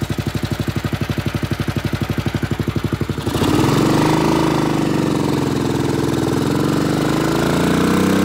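Classic motorcycle engine idling with an even, distinct beat, then revving up suddenly about three seconds in as the bike pulls away. It runs louder under way, its pitch dipping and then rising again, with wind hiss on the microphone.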